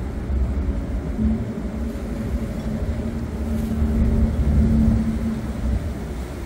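A ferry's engine running with a steady low hum, under a rough rumble of wind on the microphone.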